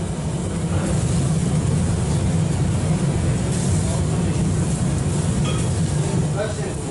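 Skewered chunks of fatty lamb sizzling over a charcoal grill, under a steady low rumble and hiss.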